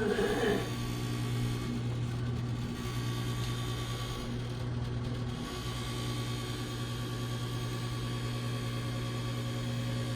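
GE Café series microwave oven running with a steady low vibrating hum, an abnormal vibration that comes on only after the oven has been used a couple of times. A short sound with a gliding pitch sits right at the start.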